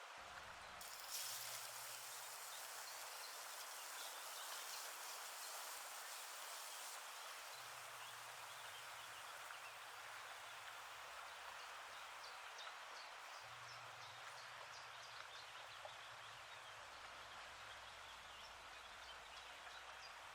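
Food sizzling in a hot pan: a faint, steady hiss that is stronger for the first several seconds, with scattered small crackles later on.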